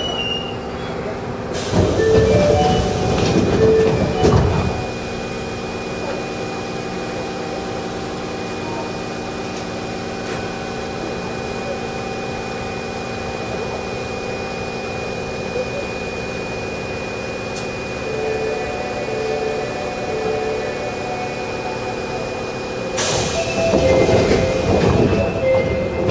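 Inside an Osaka Municipal Subway Midosuji Line 21 series car standing at a station: a steady hum from the car's equipment, with the doors sliding open about two seconds in and sliding shut near the end.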